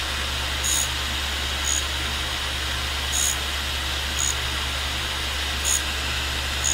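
A 1942 tool and cutter grinder runs with a diamond wheel, along with a filtered shop vacuum: a steady hum and hiss. Over it come short high-pitched scrapes about once a second as the carbide threading tool touches the diamond wheel.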